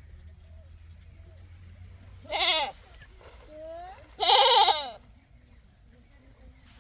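Goat bleating: two loud, wavering bleats about two seconds apart, with a fainter, shorter call between them.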